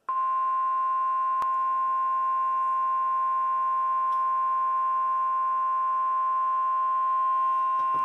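NOAA Weather Radio warning alarm tone, a single steady beep near 1 kHz that starts abruptly and holds unbroken, coming through the speaker of a WeatherX emergency weather radio. It is the alert signal that a severe thunderstorm warning broadcast follows.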